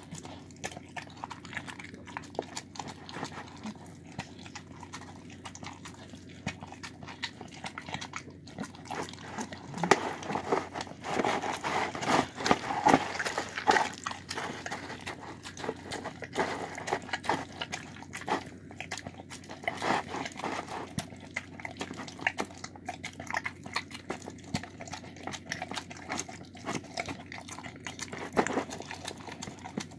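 A dog eating soft food of rice and shredded chicken from a bowl: repeated smacking, chewing and quick clicks of its mouth and tongue against the bowl, busier and louder for a few seconds about a third of the way in.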